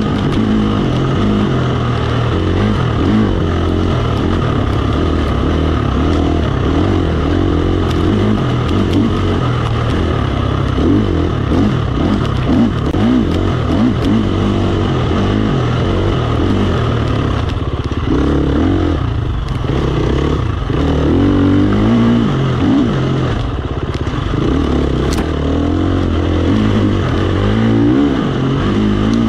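KTM 350 XC-F dirt bike's single-cylinder four-stroke engine running up and down through the revs as it is ridden along a trail, heard close up from the handlebars. The throttle is eased off briefly a few times past the middle.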